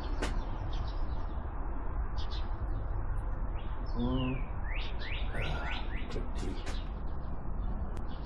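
Birds chirping: short, sharply falling high calls, with a quick run of several about five seconds in, over a steady low rumble.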